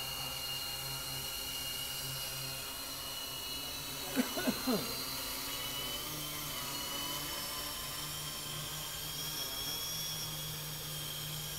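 Hexacopter's electric motors and propellers running in flight, a steady high whine over a hiss, with its pitch drifting slightly. About four seconds in, three short gliding sounds cut in briefly.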